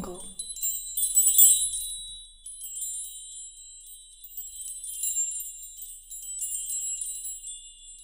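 Metal wind chimes ringing, many high tones struck at irregular moments and overlapping as they ring on; the busiest flurry of strikes comes about a second in.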